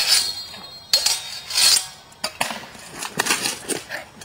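Medieval swords clashing in a sword fight: sharp metallic clanks, about six strikes at uneven intervals.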